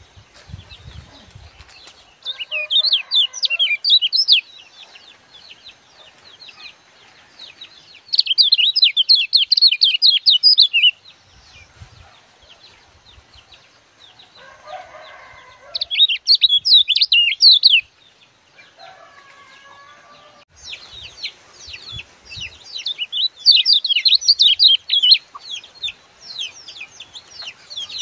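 Caged kecial kuning singing in bursts of fast, high chattering song a few seconds long, several seconds apart, then almost without pause in the last third.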